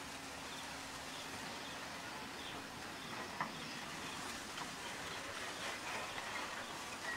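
Quiet outdoor waterside ambience: a steady low hiss with faint scattered chirps and ticks, and one short click about three and a half seconds in.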